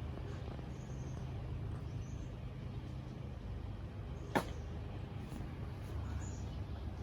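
A cornhole bag landing on the wooden board with one sharp slap about four seconds in, over a steady low background rumble.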